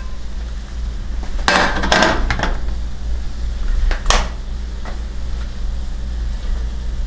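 A copper-coloured nonstick frying pan and spatula clattering as they are handled and set down: a cluster of knocks between one and two and a half seconds in, then one sharp knock about four seconds in, over a steady low hum.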